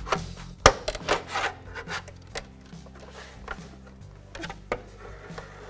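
Pry bar scraping and clicking against the rim of a chrome hubcap as it is worked around the edge to pop the cap off the wheel. There is a sharp click about half a second in, several more scrapes and clicks over the next two seconds, then lighter scraping.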